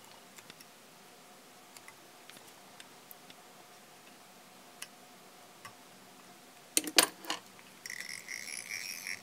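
Faint scattered clicks of tools and materials being handled at a fly-tying bench. About seven seconds in come a few louder sharp knocks, followed by a scratchy rustle near the end.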